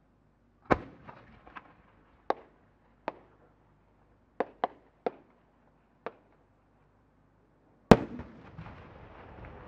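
A No. 10 (shaku-dama, about 30 cm) firework shell is fired from its mortar with a sharp bang. About eight smaller cracks follow as its rising effects pop on the way up. About seven seconds after launch the main shell bursts with the loudest bang, which trails off in a long rumble.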